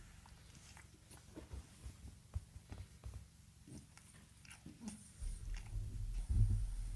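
French bulldog chewing, with small clicking and crunching mouth sounds, then low rumbling breathing that begins about five seconds in and grows louder.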